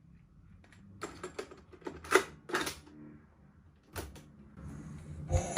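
Clicks and clunks of a cassette tape recorder being handled: a tape loaded and its piano-key buttons pressed, a few separate mechanical clicks, with playback music just starting at the very end.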